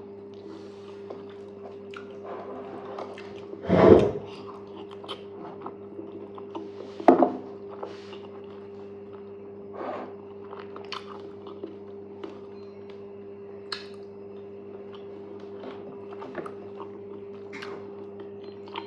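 A person eating fufu with okra soup close to the microphone: wet mouth sounds and chewing with small clicks, and two louder bursts about four seconds in and about three seconds later.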